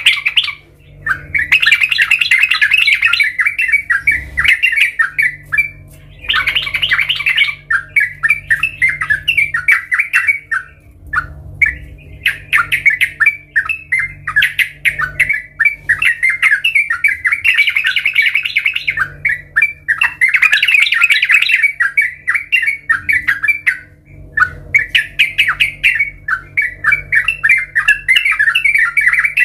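Yellow-vented bulbul (trucukan) singing in long phrases of rapid chattering notes, each several seconds long, with short pauses between them.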